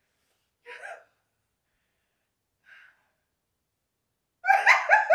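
A person's short vocal sounds: a brief one about a second in, a faint breathy one in the middle, then a louder, pulsing vocal outburst near the end.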